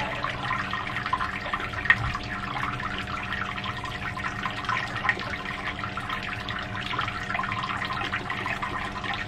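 Water trickling and crackling in home-brewing equipment, over a steady electrical hum.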